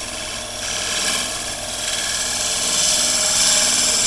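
Turning chisel cutting into a spinning wooden bowl on a lathe: a continuous cutting noise that grows louder, over the lathe's steady hum. The edge is being dulled by silica in the wood.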